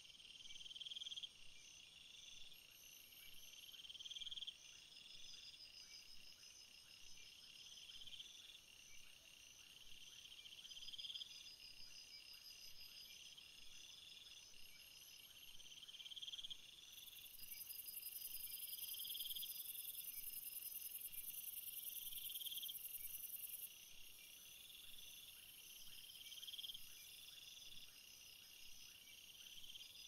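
Insect chorus: crickets chirping in repeated pulsing trills, each swelling and breaking off every second or two. A steady, very high buzz from another insect joins a little past halfway and lasts about six seconds.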